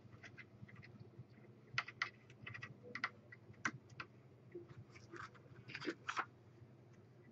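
Irregular small clicks and taps of a screwdriver and a tiny screw against a metal RAM water block as the screw is set and driven in.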